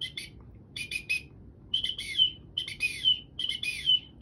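Slayer Calls Whistler's Mother duck whistle blown through its teal-and-wigeon port: a few short whistled peeps, then a run of longer whistles, each sliding downward at its end, imitating teal and wigeon.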